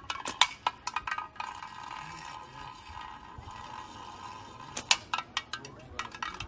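Slingshot fired: one sharp snap of the released bands a little under five seconds in, followed by a quick run of lighter clicks. Lighter clicks and taps also come in the first second and a half.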